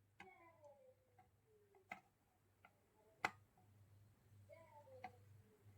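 Near silence with a few faint, sharp clicks, the loudest about three seconds in, from multimeter probes tapping on transistor legs on an amplifier circuit board. A faint low hum runs underneath, and a faint falling tone comes twice.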